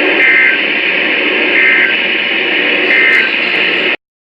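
Three short EAS end-of-message data bursts (the SAME 'NNNN' tones), each about a third of a second long and about 1.4 s apart, over loud, steady radio static. The static cuts off abruptly near the end.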